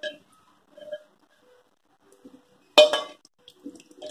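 Spoon scraping curry out of a cooking pan into a glass bowl: a few soft scrapes and clinks, then one sharp, loud clink of utensil on pan about three seconds in.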